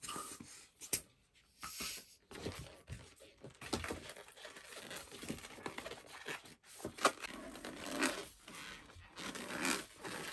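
Hands handling a latex modelling balloon: the last strokes of a hand pump inflating it, then the nozzle being knotted and the balloon worked, giving irregular rubbing and scraping noises.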